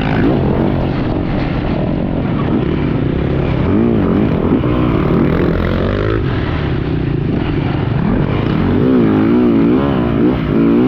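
Yamaha YZ450 four-stroke motocross bike engine being ridden hard, the revs rising and falling repeatedly with throttle and gear changes.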